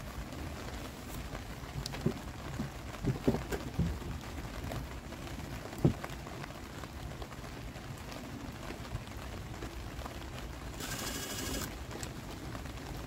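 A few wooden knocks as a plank is set against the door frame, then a short burst from a Makita 18V cordless impact driver hammering a screw home near the end. Light rain hisses steadily underneath.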